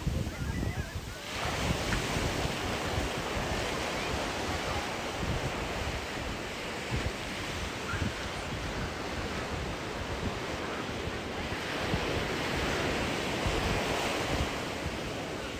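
Surf washing onto a sandy beach, its hiss swelling about a second in and again near the end, with strong wind buffeting the microphone in a low rumble.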